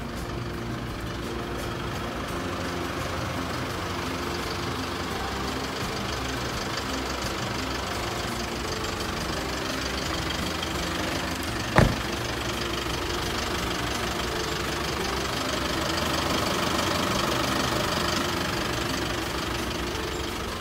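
Mazda Titan truck's diesel engine idling steadily, with one sharp thump a little past halfway through.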